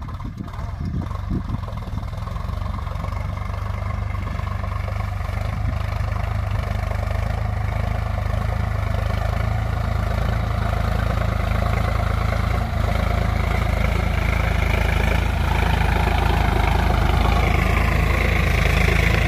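Sonalika tractor's diesel engine running steadily as it pulls a seed drill across the field, growing gradually louder as it drives closer.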